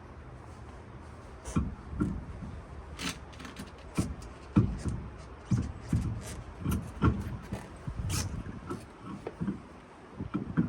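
Irregular metallic clanks and knocks of hand tools and wheel parts as a car's flat tire is changed, starting about a second and a half in and coming every half second to a second.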